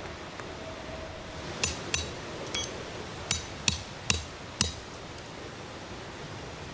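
Sharp metallic clinks, about seven strikes with a brief ringing, the last four coming evenly about every 0.4 s.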